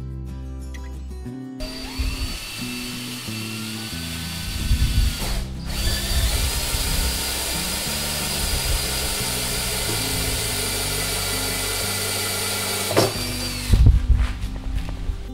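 DeWalt cordless drill driving a 1-1/4-inch hole saw through the polyethylene wall of a tank: the motor spins up with a rising whine about a second and a half in, stops briefly around five seconds in, then runs steadily and winds down near the end, followed by a short clatter. Background music plays throughout.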